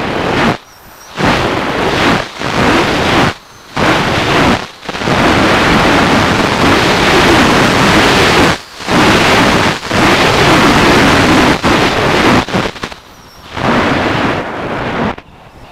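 Loud rushing of wind and propeller noise on the onboard camera of a Multiplex Solius electric RC glider in flight. It drops away sharply for a moment about nine times and comes straight back each time.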